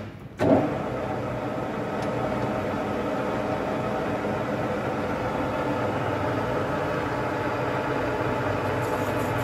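Metal lathe starting up about half a second in, just after a sharp clunk from its chuck guard being closed, then running steadily with the three-jaw chuck spinning free and no cut being taken.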